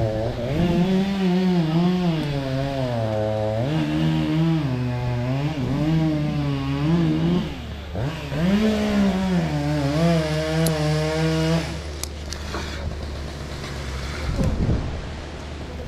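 Chainsaw running, its engine revving up and down repeatedly, then cutting off about twelve seconds in; a low steady drone carries on underneath.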